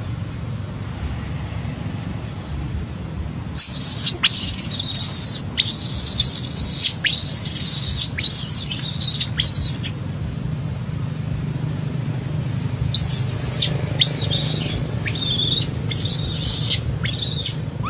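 Macaque screaming: a run of about eight high-pitched, arching calls, a pause of about three seconds, then a second run of about seven. A steady low rumble lies underneath throughout.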